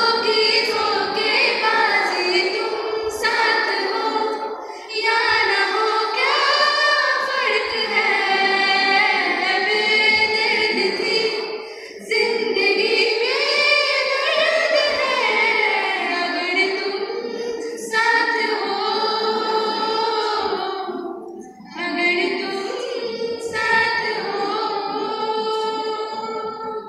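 Schoolgirls' voices singing a song in long phrases, with short breaks between the lines.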